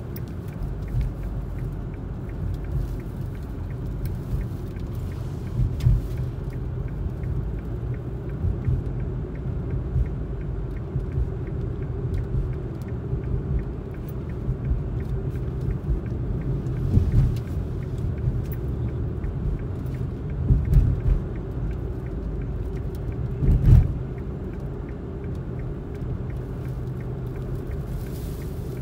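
Steady low rumble inside a moving car's cabin as it drives through a dust storm, with about four brief, louder low thumps.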